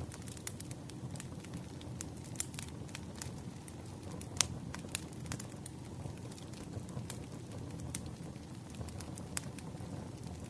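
Wood fire crackling: a steady low rush with irregular sharp pops and snaps, one louder pop a little before halfway.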